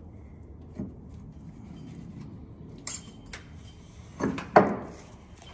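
Metal parts and tools clinking and knocking while a tank gearbox's brake assembly is being fitted: scattered light clinks, a sharp click about three seconds in and two louder knocks near the end.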